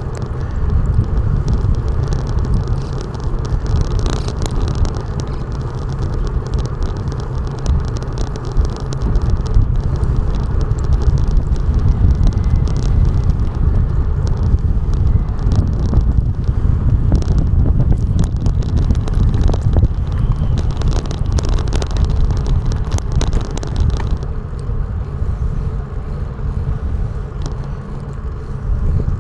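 Wind and road noise over an action camera's microphone during a ride, a heavy rumble low down with many short sharp ticks over it.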